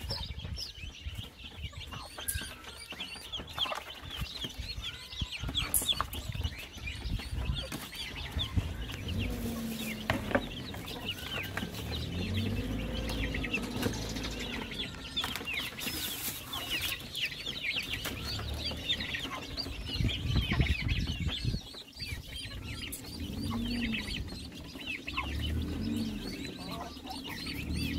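Newly hatched Sasso × Rhode Island Red cross chicks peeping continuously in quick, high chirps, with lower clucking calls from chickens now and then.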